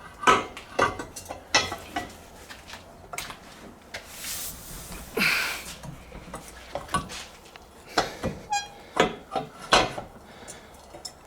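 Irregular metal clanks, knocks and clinks as a homemade pin spanner is worked against a hydraulic cylinder's rod guide to turn it off, with a short scraping rasp about four to five seconds in.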